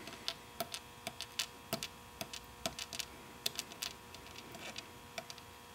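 Steel screwdriver tip tapping and clicking against small components on a circuit board: light, irregular clicks, a few a second, that stop about five seconds in.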